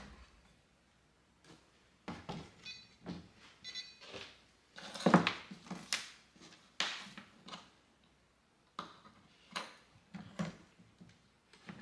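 Parts being fitted into a 3D-printed plastic box by hand: irregular light knocks and clicks, the loudest about five seconds in.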